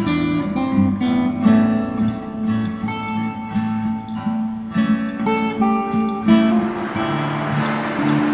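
Background music: an acoustic guitar picking and strumming a melody. Near the end, a steady hiss of background noise comes up beneath it.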